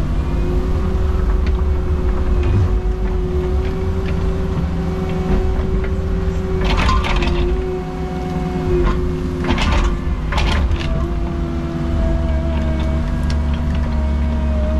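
Cat 306 mini excavator's diesel engine running under load, with a steady whine that shifts in pitch as the machine is worked, and a few sharp knocks near the middle of digging.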